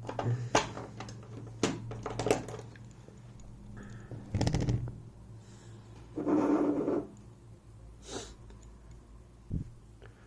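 Small metal parts clicking and rattling as sliders are worked out of a disassembled EVVA 3KS lock core. There is a quick rattle about four and a half seconds in, and a longer, louder sound about six seconds in.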